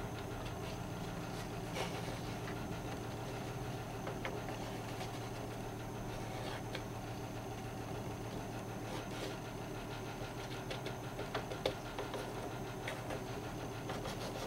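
A steady low mechanical hum with a few faint light ticks, the sharpest about two thirds of the way through.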